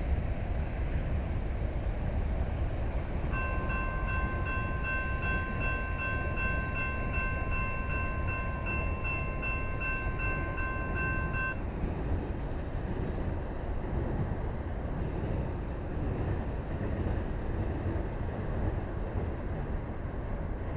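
Railroad grade-crossing bell ringing in a quick, even run of dings that starts a few seconds in, as the gates begin to rise, and stops suddenly about eight seconds later, once they are up. Under it runs a steady low rumble from the departing freight train.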